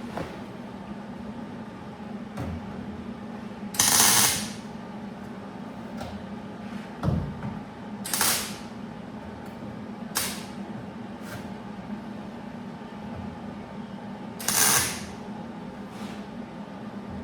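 Welder laying short tack welds on a sheet-metal patch panel: four brief crackling bursts spaced a few seconds apart, over a steady low hum, with a single knock about halfway through.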